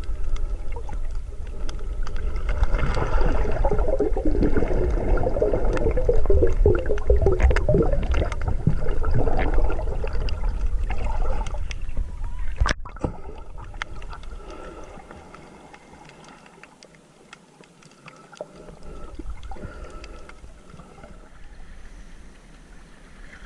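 Water gurgling and washing, with a heavy low rumble through the first half. It cuts off abruptly about halfway through, and after that it is quieter.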